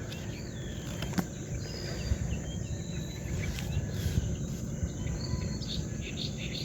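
Outdoor ambience of small birds chirping and insects calling over a steady low rumble, with a single sharp click about a second in.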